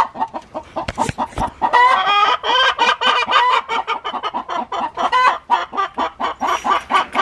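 Chickens clucking and cackling in a rapid, continuous string of calls, with two sharp knocks about a second in.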